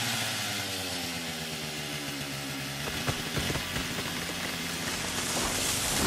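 An engine running steadily, with a rattle of short ticks and knocks joining it about halfway through.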